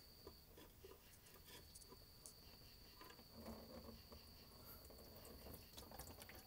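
Near silence: faint light clicks and patter, with a thin, steady high-pitched tone that drops out briefly about half a second in.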